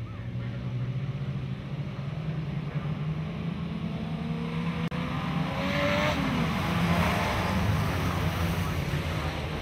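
A pack of dirt-track sedan race cars running together, their engines rising in pitch and getting louder about halfway through as the field accelerates.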